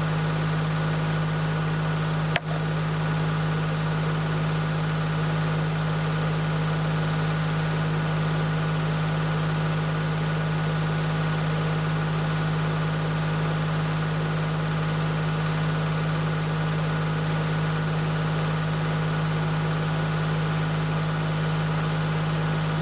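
A motor-driven machine running steadily at one even pitch without load changes, with a single sharp click about two and a half seconds in.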